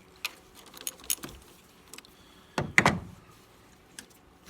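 Hand tools clicking and clinking on metal while the EGR valve's mounting bolts are loosened with a Torx socket and wrench: a scatter of sharp ticks, with a louder clunk and rattle near the middle.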